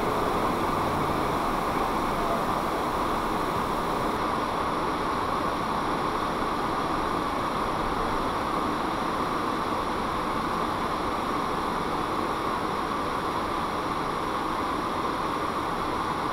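Steady road and tyre noise inside a moving car, picked up by a windshield-mounted dash camera's built-in microphone: an even hiss with no clear engine note. The highest part of the hiss drops slightly about four seconds in.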